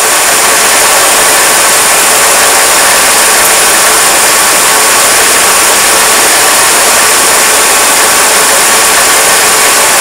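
Steady rushing engine-bay noise from a 2000 Mercedes-Benz C230's supercharged four-cylinder engine idling with the air conditioning running, while the system is charged with refrigerant at the low-pressure port.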